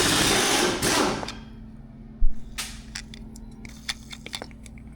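Mechanics' tool noise while working on a kart wheel's lug nuts: a loud hissing burst lasting about a second, then one sharp metallic clang about two seconds in, followed by a few light clicks.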